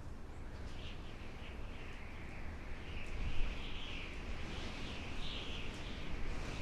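Outdoor nature ambience: continuous high, warbling chirping of birds over a low, steady wind rumble.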